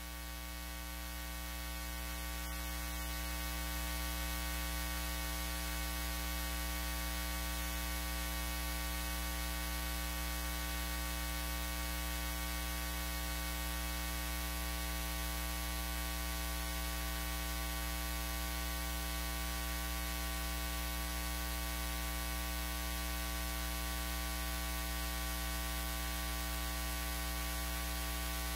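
Steady electrical mains hum, a buzz with many evenly spaced overtones over a light hiss, swelling slightly over the first few seconds and then holding steady.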